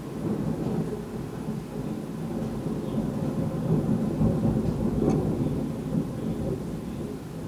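Rolling thunder from a severe thunderstorm: a long low rumble that swells, peaks about four to five seconds in, and slowly fades.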